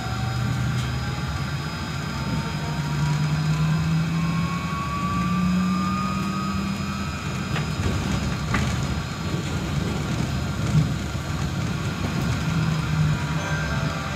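Solaris Trolino 12 trolleybus heard from inside the cabin: the electric traction drive whines, rising slowly in pitch as the bus picks up speed, over a steady low hum and road noise. A single sharp knock comes about eleven seconds in.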